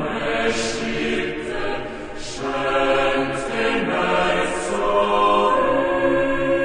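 Background music of choral, chant-like voices: long held notes that shift to new chords every second or two.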